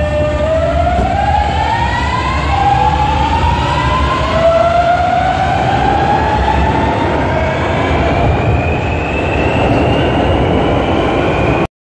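Alstom Metropolis metro train heard from inside the car as it pulls away and accelerates: the traction motors' whine climbs through a series of stepped, rising tones over a steady rumble of wheels on rail. The sound cuts off suddenly near the end.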